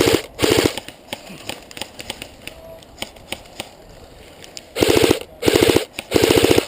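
Airsoft electric gun firing short full-auto bursts, each a fast, even buzzing rattle: two bursts in the first second, then three more in quick succession near the end.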